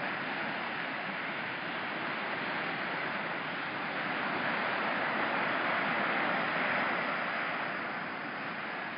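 Small ocean surf washing onto the beach, with a breeze, heard as a steady rushing hiss that swells and eases again a little past halfway.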